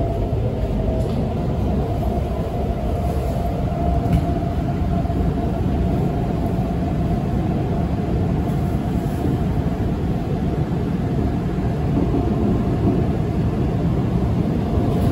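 Guangzhou Metro Line 22 train running at speed, heard from inside the car: a steady low rumble with a steady whine over it, growing slightly louder near the end.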